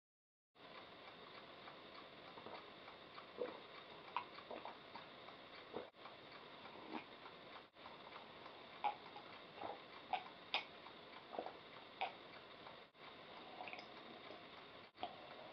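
A person gulping down a drink from a ceramic mug: faint swallows and small mouth clicks over quiet room tone, broken by a few abrupt dropouts.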